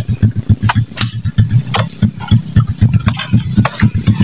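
A motorcycle engine idling with a quick pulsing beat, with scattered sharp knocks and clatter over it.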